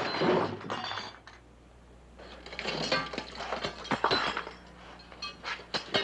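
Handling and rummaging sounds: a rough scraping and rustling in the first second, then from about two seconds in a run of sharp clicks and small metallic clinks.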